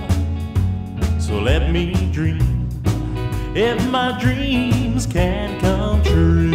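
Country-style song playing as background music, with a steady beat and bass line under gliding sung or guitar melody lines.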